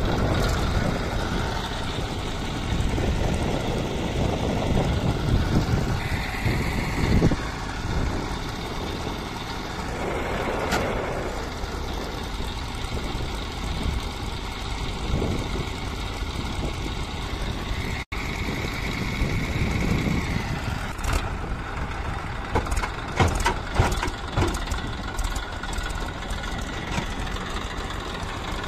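Massey Ferguson 1035 DI tractor's diesel engine running steadily while its hydraulic tipper raises a trolley loaded with earth. A brief higher whine comes twice.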